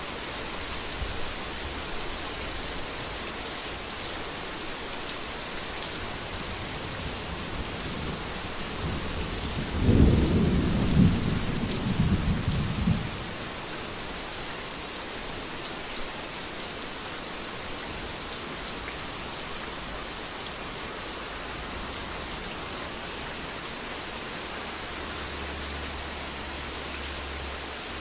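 Heavy rain falling steadily. About nine seconds in, a low roll of thunder rises and rumbles for about three seconds, then fades back under the rain.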